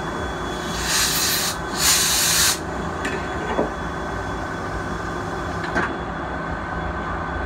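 CNC lathe running with a steady machine hum while its tailstock center advances to support the bronze part, with two short bursts of hiss about a second and two seconds in.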